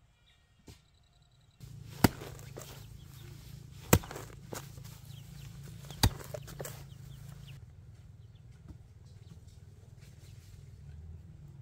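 Chickens clucking, with three sharp knocks about two seconds apart near the start.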